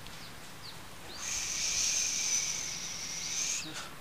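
Insect buzzing in the trees: a steady high hiss that starts about a second in and lasts about two and a half seconds, with a few short falling bird chirps around it.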